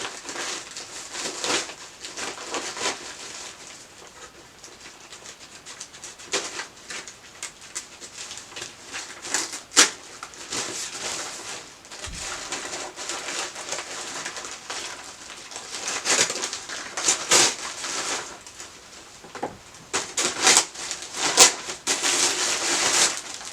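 A shipping package being opened and handled by hand: irregular rustling and crinkling with sharp snaps and clicks now and then, the loudest about ten seconds in.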